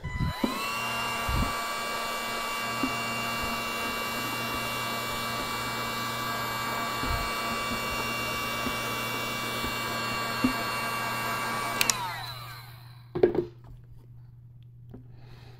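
Electric heat gun switched on: its fan motor whines up to speed within a second and runs steadily, a high whine over a rush of air, while heating the earbud case to soften its adhesive. About twelve seconds in it is switched off and winds down, followed by a couple of light knocks.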